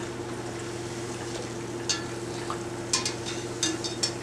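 Zeppole dough frying in hot oil, a steady sizzle, with a wire spider skimmer clinking against the enamelled cast-iron pot several times in the second half as the dough balls are turned and held down.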